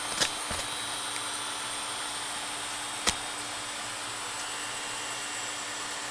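Induction cooktop running while it heats a pot, its cooling fan giving a steady whir with a faint constant whine. Two sharp clicks, about a quarter second in and about three seconds in.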